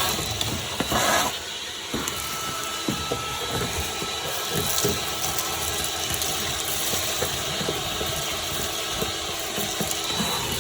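Vacuum cleaner running steadily, a continuous hiss with a steady whine, with scattered knocks and rattles as it works over the trunk.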